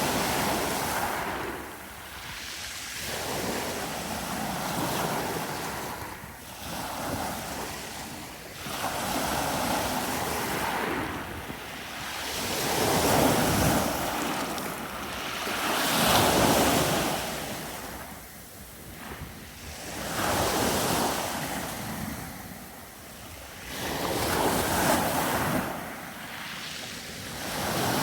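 Sea waves breaking and washing onto a beach, the surf swelling and fading every few seconds with the loudest breakers about halfway through. Wind buffets the microphone.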